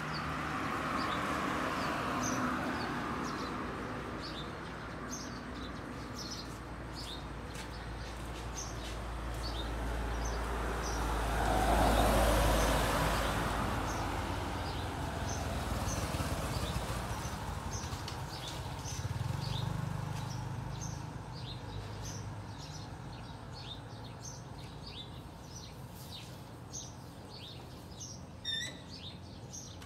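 Roadside traffic noise: a vehicle passes, swelling and fading about halfway through, while small birds chirp again and again throughout.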